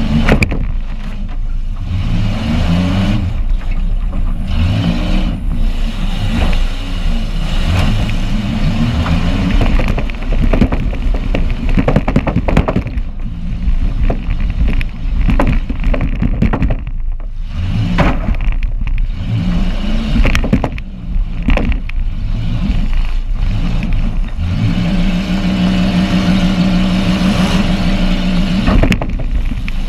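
Demolition derby car's engine heard from inside the stripped cab, revving up and down with the throttle, with sharp bangs and clatter from the car's body as it takes jolts. Near the end the engine holds one steady pitch for a few seconds.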